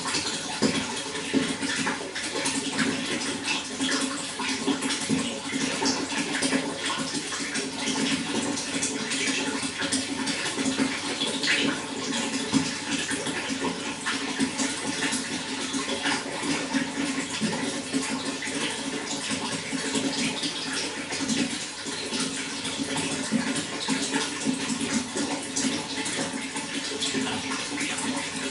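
Running water flowing steadily, a continuous splashing rush with no breaks.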